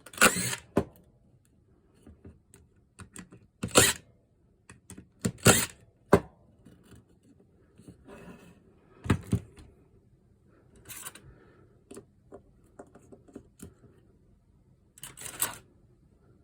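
Hand-handling noises from a cordless screwdriver and its parts being worked on: irregular light clicks and knocks, with several louder short clatters spaced a few seconds apart.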